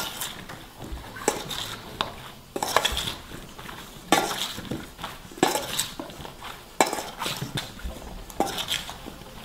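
Metal spoon stirring and tossing starch-dusted eggplant cubes in a stainless steel bowl, with irregular clinks and scrapes of the spoon against the bowl.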